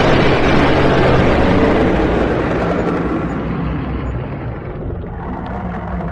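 Dragon sound effect: a loud, rough rushing rumble that slowly fades away.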